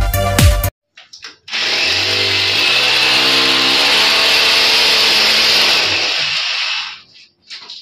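Electric drill boring into a wall, running steadily for about five seconds and then stopping, with a brief burst just before the end. Background music cuts off in the first second.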